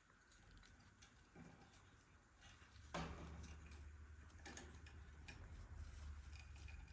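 Faint, scattered ticks and taps, with one sharper click about three seconds in, after which a low hum comes in.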